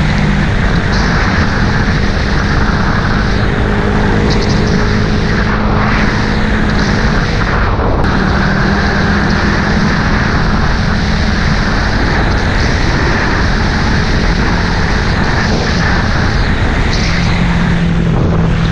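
A vehicle under way: a loud, steady rushing noise over a low hum that shifts in pitch a few times.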